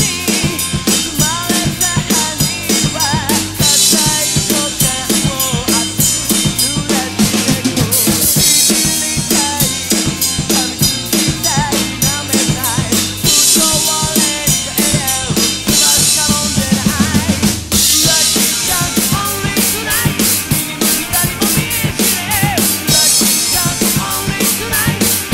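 Acoustic drum kit played to a rock song: steady bass drum and snare strokes with cymbal crashes coming back every few seconds. The band's recording, with a singing voice, plays along underneath.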